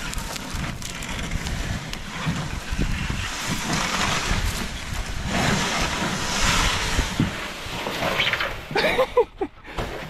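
Blue plastic canoe hull scraping and sliding over sand and dry reeds as it is dragged to the water's edge, in uneven pushes, with wind buffeting the microphone.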